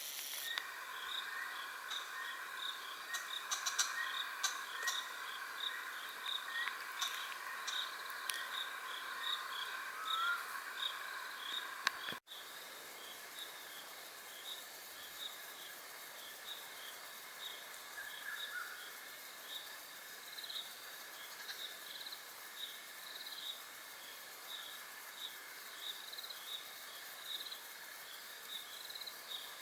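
Dusk chorus of insects in the African bush, led by crickets chirping in an even rhythm of about two chirps a second. A denser, lower chorus is heard in the first part and drops away after an abrupt cut about twelve seconds in.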